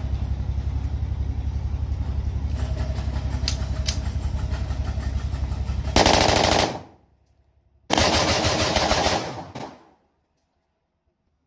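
A steady low engine-like drone, then two bursts of rapid automatic fire from a locally made 30 bore (7.62×25 mm Tokarev) Zigana-pattern pistol with a long magazine. The first burst comes about six seconds in and lasts under a second. The second, about a second later, runs about a second and a half.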